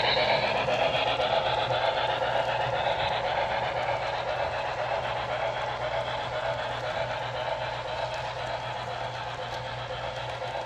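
HO scale model passenger cars rolling past on the track: a steady rolling hiss and rumble of the wheels that slowly fades as the train moves on.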